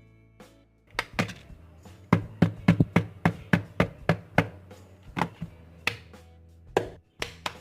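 A rapid, uneven series of sharp knocks, starting about a second in and coming about three to four a second before thinning out near the end.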